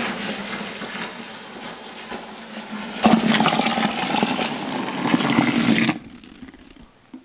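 Cold water poured from a plastic jug into a plastic fermenting bucket of wort, splashing and foaming, topping the wort up to volume. The pour grows louder about three seconds in and stops suddenly about six seconds in.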